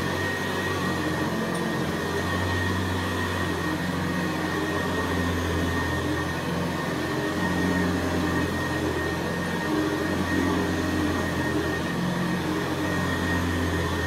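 Hoover Senior U4002 upright vacuum cleaner running steadily while being pushed back and forth over carpet: a constant motor hum with a steady high whine.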